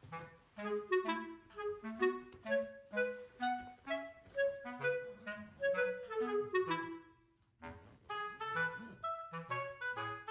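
Background music: a bouncy tune of short, detached notes over a bass line. About seven seconds in, a falling run of notes ends in a brief pause, and then the tune starts again.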